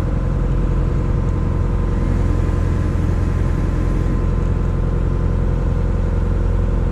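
Boat engine running steadily: a deep, even drone with a constant hum above it.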